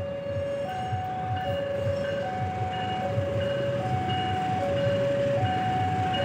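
Electronic warning alarm sounding two alternating tones, high then low, each held just under a second, typical of an Indonesian railway level-crossing signal warning of an approaching train; a low rumble runs underneath.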